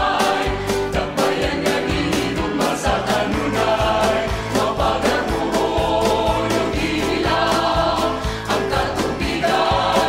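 A choir singing a civic march in Cebuano, a line of the lyrics about Iligan's waters and industry, over instrumental accompaniment with a steady beat.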